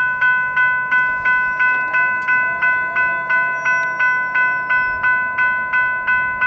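Railroad crossing bell ringing rapidly and steadily as a freight train approaches the crossing, about three strikes a second, each dying away before the next.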